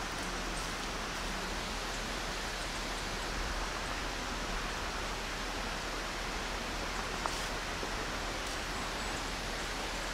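Steady, even rush of a distant waterfall, with one faint tick about seven seconds in.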